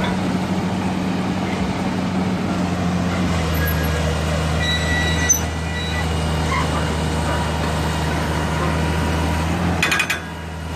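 Engine of a fully hydraulic drilling rig running steadily under load, its pitch dropping slightly about three seconds in. A short clatter of sharp knocks near the end.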